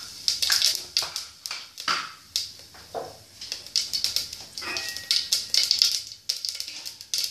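Cumin seeds crackling and sputtering in hot oil in a pressure cooker: a rapid, irregular run of sharp pops over a light sizzle.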